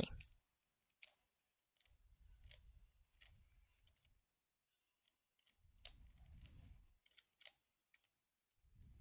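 Faint plastic clicks and soft handling noise of a 3x3 Rubik's Cube's layers being turned by hand, with a scattered click every second or so.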